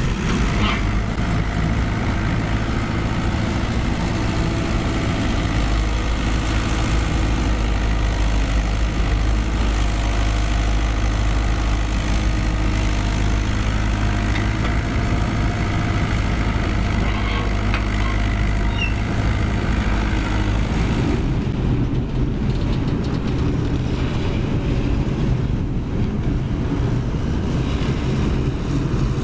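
Komatsu PC75UU mini excavator's diesel engine running steadily while it digs and moves dirt. About two-thirds of the way through, the sound turns duller and a steady low rumble remains.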